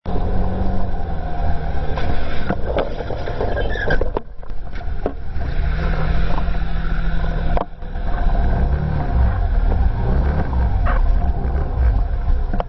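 A motorbike engine running and revving, its pitch stepping and swinging up and down, with a few sharp knocks along the way.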